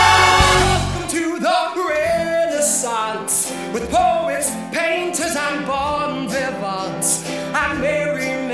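Live stage-musical performance: a full-cast number ends on a loud held chord about a second in, then a male singer starts a new, lighter number over plucked strings with a light beat.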